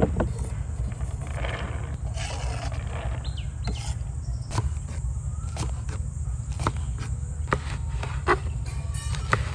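A kitchen knife chops crisp green vegetables on a wooden cutting board, in single sharp chops roughly once a second that thicken in the second half, over a steady low rumble. A bird chirps faintly a couple of times.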